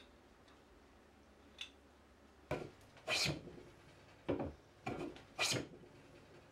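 Hand plane taking about five short, quick strokes along the edge of a wooden board, each a brief swish of the blade shaving the wood, starting about two and a half seconds in.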